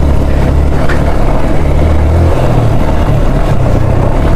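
Motorcycle engine running at low revs, its low rumble shifting slightly in pitch as the bike rolls down a rough dirt trail, with a steady rushing noise over it.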